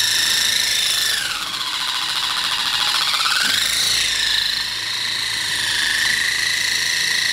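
Coaxial-rotor radio-controlled helicopter hovering low, its electric motors and spinning blades giving a high-pitched whine. About a second in the pitch dips, then climbs back around four seconds and levels off.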